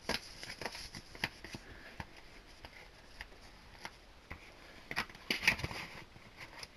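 DVD cases and their packaging being handled: scattered plastic clicks and taps, with a denser burst of rustling and clicking about five seconds in.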